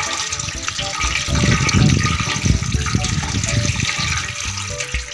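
Tap water pouring steadily onto boiled moringa (sohanjana) in a plastic colander as a hand rubs and rinses it: a continuous splashing rush of running water.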